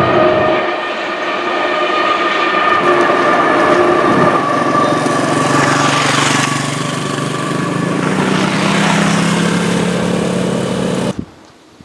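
Freight train rolling past, its wheels clattering on the rails, with steady ringing tones held over the noise. The sound cuts off abruptly near the end.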